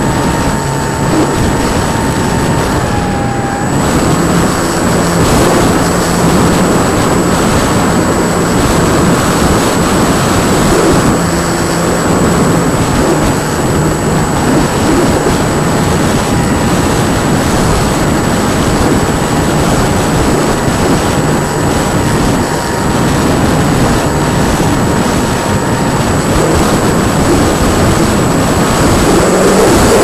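Radio-controlled model airplane in flight, heard from its onboard camera: a loud steady rush of wind on the microphone with the faint whine of the motor and propeller underneath, its pitch shifting a few times as the throttle changes.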